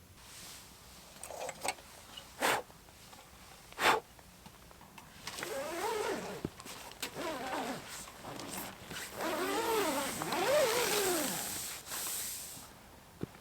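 A few sharp clicks, then about seven seconds of rustling and scraping strokes that rise and fall in pitch.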